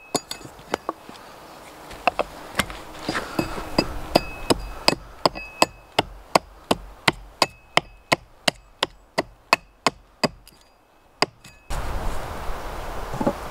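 A broad axe chopping into the end of a wooden post in quick strokes, about three sharp knocks a second, steel biting into wood. The chopping stops shortly before the end and a steady hiss takes over, with a couple of soft knocks.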